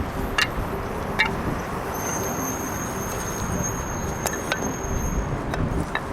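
Strong wind rumbling on the microphone, with a few sharp clicks and a thin high whine that comes in about two seconds in and stops about five seconds in.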